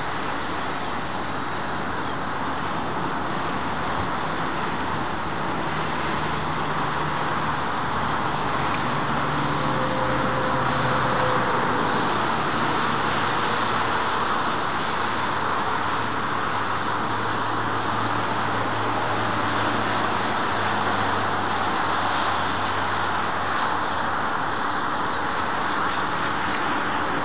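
Boeing 787-8 Dreamliner's jet engines on approach, a steady rushing noise that grows a little louder over the first ten seconds or so, then holds level.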